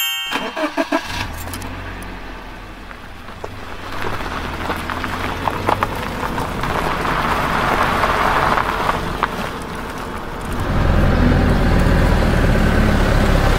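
Truck engine sound running steadily, quieter at first and clearly louder from about ten seconds in, with some gravelly crunching in the middle.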